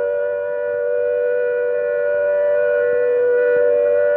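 Civil defence siren sounding the all-clear: a steady, unwavering note, the signal that the danger of attack is over and people may leave cover.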